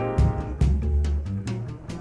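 Instrumental background music with a deep bass line and a steady beat.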